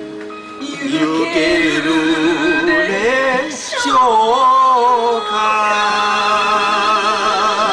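A man singing a Japanese enka song into a handheld karaoke microphone over a backing track, his held notes wavering with heavy vibrato. About halfway through his voice slides steeply down from a high note.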